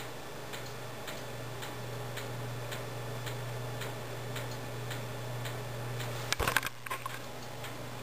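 Steady low hum with faint, even ticking about twice a second. A few short knocks come about six and a half seconds in, as the camera is handled.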